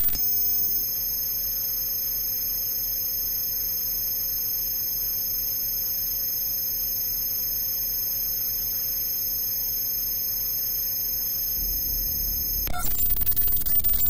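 Steady electrical hum with several thin, high steady tones above it, a drone in a minimal glitch composition made from electrical noise. The low part of the hum shifts about eleven and a half seconds in, and about a second later the high tones cut off abruptly and a louder crackling static texture takes over.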